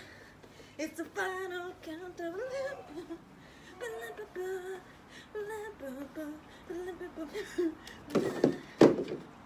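A woman humming a wavering tune in short phrases, with a couple of louder, sharp bursts near the end.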